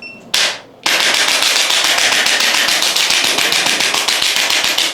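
Handheld percussion device hammering rapidly on the body: a short burst, then a steady, rapid pulsing run of about four seconds that cuts off suddenly.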